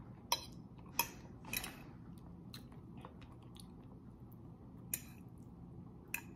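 Metal fork clinking against a plate: a few sharp clinks, three in the first two seconds and two more near the end, with soft chewing in between.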